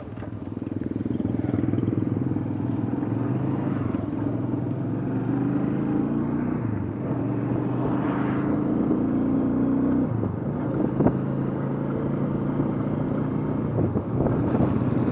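Bodaboda motorcycle engine running under way, heard from the pillion seat. The engine note climbs steadily as it gathers speed, then drops abruptly about ten seconds in.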